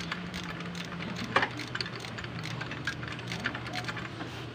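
Small metal clicks and clinks of a socket wrench being worked on bolts under an engine, with one louder metallic clack about a second and a half in, over a low steady hum.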